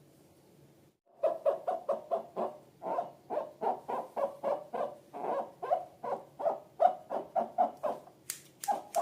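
Slime being squeezed and worked by hand, giving a fast, regular run of short pitched squelches, about four to five a second, starting about a second in. A few sharp clicks come near the end.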